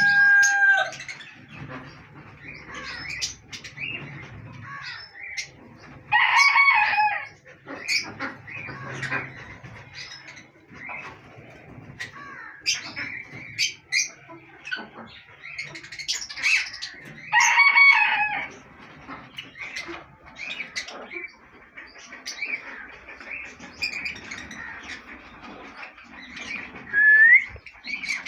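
A rooster crowing twice, long stacked calls about six seconds in and again around seventeen seconds. Between the crows, parrots give short, shrill calls throughout.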